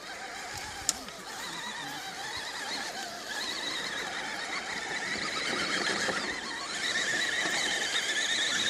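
RC crawler's electric motor and gearbox whining, the pitch wavering with the throttle and growing louder in the last couple of seconds. A single sharp click about a second in.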